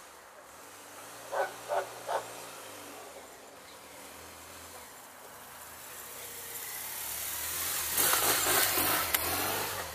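BMW motorcycle engine running low and steady as the bike approaches, growing louder until it passes close by about eight seconds in, with a loud rush of noise as it goes past.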